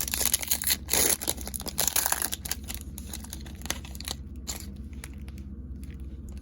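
Foil wrapper of a trading card pack being torn open and crinkled, loudest in the first two seconds, followed by lighter rustles and ticks as the cards are handled.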